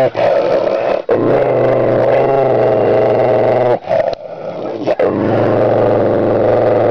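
A puppy growling at its own reflection in a car door: long, loud growls broken by short pauses about a second in, around four seconds in and at five seconds.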